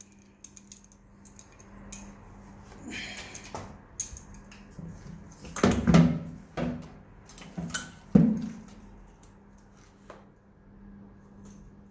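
Clattering knocks and clicks as the Suzuki TL1000S's air cleaner box is handled and its wiring connectors unclipped, the loudest knocks falling between about six and eight seconds in, over a faint steady hum.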